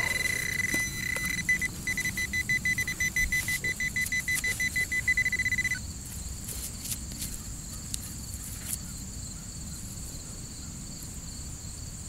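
Metal detector sounding off on a buried iron target, an old wrench: a steady high electronic tone that turns into rapid, even beeping about two seconds in and cuts off about six seconds in. After that come faint clicks of digging in soil, with crickets in the background.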